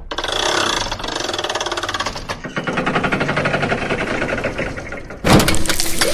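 Rapid, evenly spaced mechanical pulsing like a motor running, which gives way about five seconds in to a sudden, much louder sound that covers all pitches.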